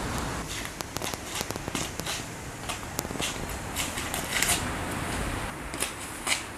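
Irregular short scuffs and swishes from kickboxing footwork and kicks: sneakers scraping gritty concrete and nylon tracksuit trousers swishing, with a sharper one near the end, over a low steady rumble.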